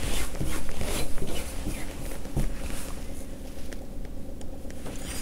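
Hand smoothing a printed fabric piece flat on lining fabric: repeated rustling swishes of cloth rubbed against cloth, with a soft knock about two and a half seconds in.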